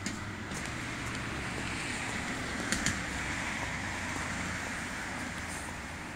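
City street traffic noise: a steady hum of vehicles that swells louder in the middle, with a couple of short clicks about three seconds in.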